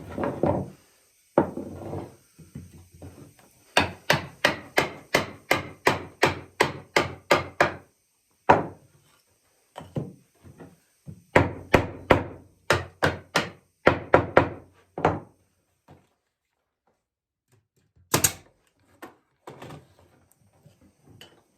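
Sourwood chair parts being driven together with blows, the rounds knocked into the frame joints: two long runs of sharp even knocks, about three a second, with a pause between and a few lone knocks. Near the end comes one sharp click.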